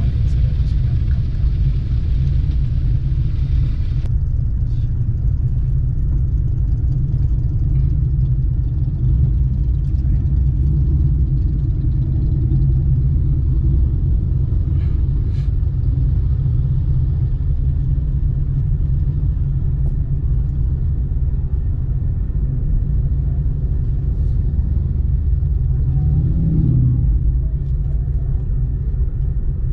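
Steady low rumble of a car driving slowly, heard from inside the cabin: engine and road noise. Near the end a low tone briefly rises and falls in pitch.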